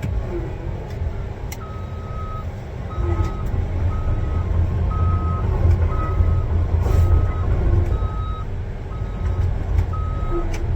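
Caterpillar D8T bulldozer's diesel engine running, with its reverse backup alarm beeping about once a second, beginning about two seconds in. The alarm shows the machine is in reverse, backing up. The engine rumble grows louder about three seconds in.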